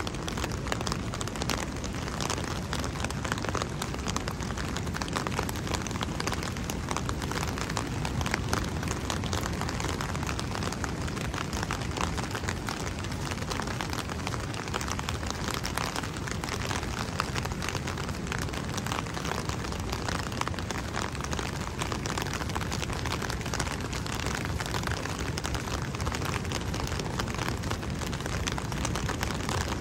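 Heavy rain pattering steadily on an umbrella overhead, a dense run of fine drop hits over a low rumble.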